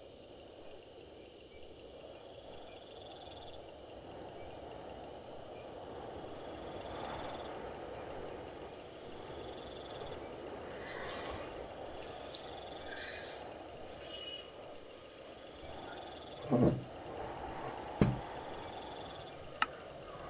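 Night-time crickets chirping in an even, repeating pulse over a steady low hiss. Two thumps and a sharp click break in near the end.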